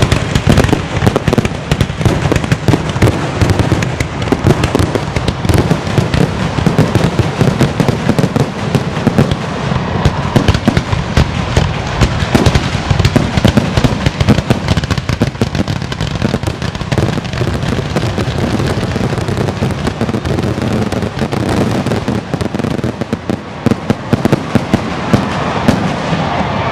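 Aerial fireworks going off in a dense, continuous barrage: many bangs a second with crackling and low booms.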